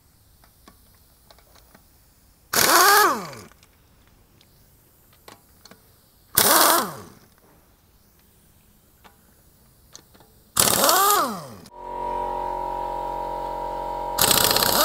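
Draper air impact gun undoing tight wheel nuts in four short bursts of about a second each, every burst ending with a falling whine as the air motor spins down. A steady hum with several fixed pitches starts about three-quarters of the way through and runs on under the last burst.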